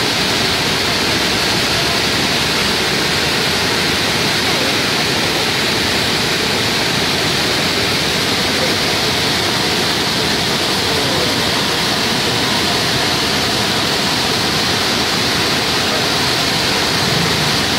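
A river in flood, its muddy torrent rushing and churning past the bank. A loud, steady rush of water that never lets up.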